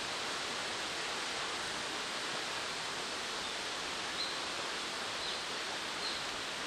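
Steady rushing outdoor noise with a few short, high bird chirps in the second half.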